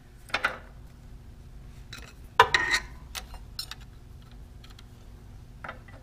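Metal clinks and scrapes of a screwdriver working a hose clamp onto a hose, a handful of sharp clicks with the loudest about two and a half seconds in.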